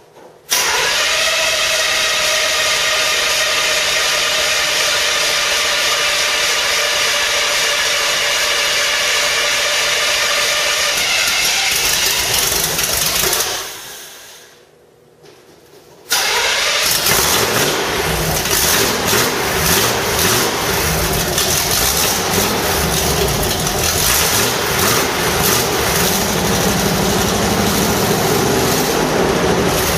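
Chevrolet 267 small-block V8 cold-started: it catches and runs steadily for about twelve seconds, then winds down and dies. About sixteen seconds in it fires again and runs loud and uneven, with the revs rising and falling.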